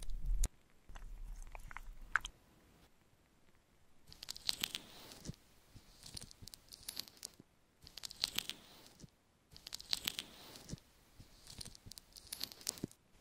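Thick warm wax being spread with a wooden spatula: five bouts of sticky, crackling strokes about two seconds apart. At the start, a brief low hum with a few clicks from the wax warmer.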